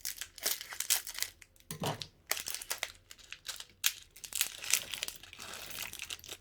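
Irregular crinkling and crackling as slime add-ins and their plastic packaging are handled and tipped into a bucket of slime.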